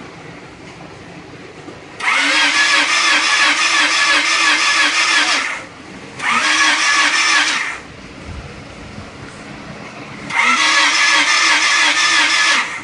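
Allis-Chalmers D-16 tractor engine being cranked by its starter in three bursts, the longest about three and a half seconds, turning over with a rhythmic pulse but never firing. It cranks without starting even though it has spark and fuel.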